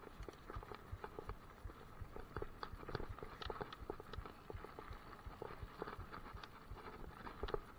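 Mountain bike clattering over a rough dirt forest trail: quick, irregular knocks and rattles from the bike jolting over bumps, over a steady rushing noise of tyres on dirt.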